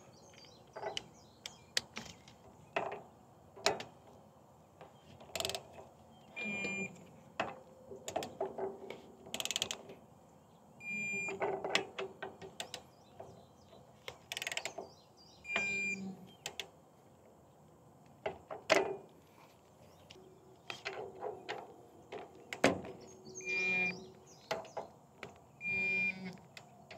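Digital torque wrench with a 10 mm socket tightening the valve caps on a brass triplex pressure washer pump: irregular ratchet clicks and metal clinks, with about five short electronic beeps a few seconds apart as caps reach the set torque of 15 foot-pounds.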